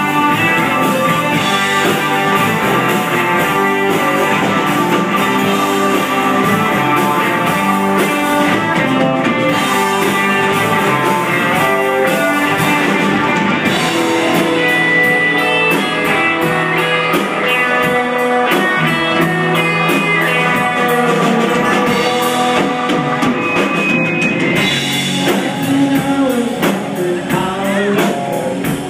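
Live rock band playing, with electric guitars and bass guitar.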